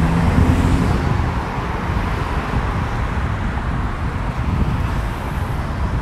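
Street traffic noise: a steady rumble of passing cars.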